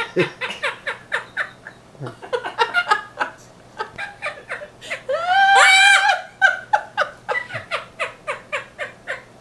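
African grey parrot mimicking laughter: a quick run of short 'ha' sounds, with one longer, louder drawn-out call about halfway through.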